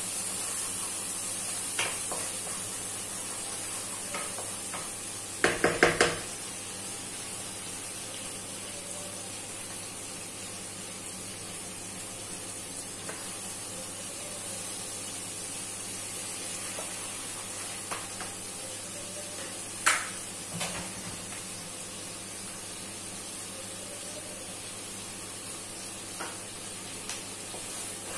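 Chopped garlic sizzling in sauce in a wok, with a wooden spatula stirring and scraping the pan. The spatula knocks sharply against the wok four times in quick succession about six seconds in, and once more near the twenty-second mark.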